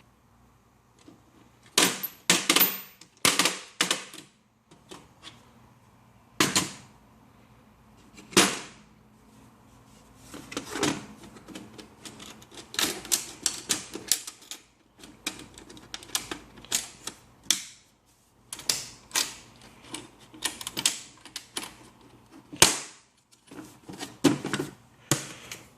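Metal sockets and their plastic carrying case clicking and clattering as they are handled: irregular sharp clicks and knocks, some single, some in quick runs.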